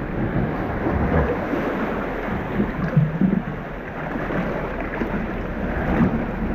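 Steady, muffled rushing noise of wind and water with a low rumble underneath.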